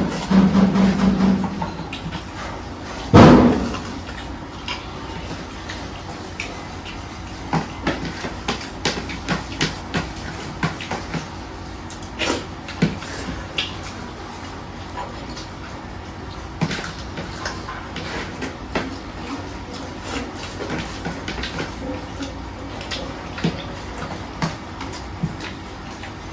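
Eating sounds at close range: scattered short clicks and knocks of hand, food and plate, with one loud thump about three seconds in.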